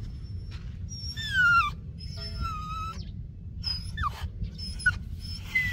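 Miniature schnauzer whining in high, squeaky peeps. A falling whine comes about a second in, a longer held whine follows, and short squeaks come near the end.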